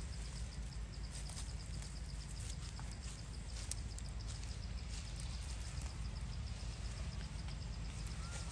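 Outdoor background noise: a steady low rumble with scattered faint clicks and crackles, and a faint, fast, even high ticking; a short faint chirp sounds near the end.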